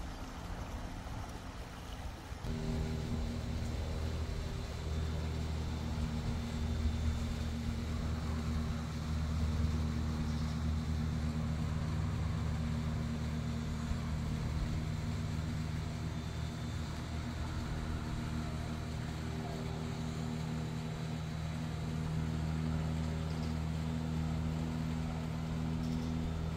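A machine starts about two and a half seconds in and runs with a steady, unchanging low hum.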